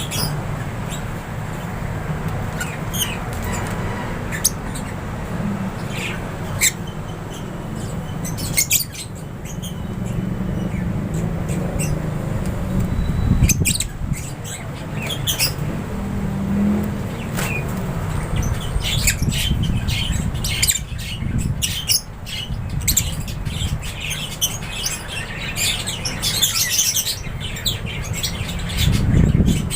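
An aviary flock of lovebirds and budgies chirping and squawking, the short high calls growing denser about two-thirds of the way in, over a steady low rumble.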